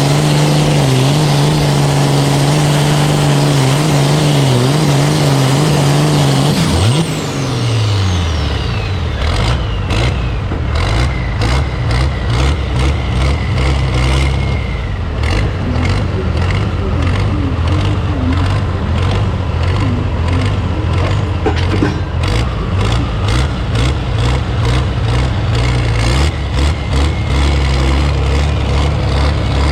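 Pulling tractor engine running at high, steady revs, then dropping off sharply about seven seconds in as a high whine winds down over a few seconds. It settles into a lower, uneven, loping idle with a rhythmic chop.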